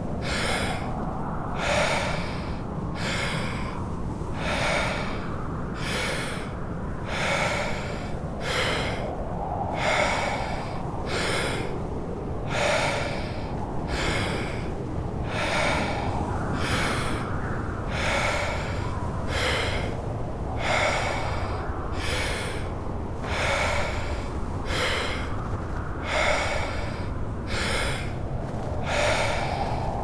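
Wim Hof power breathing: a person takes deep, rapid breaths in and out, about one a second in an even rhythm, over steady snowstorm wind noise.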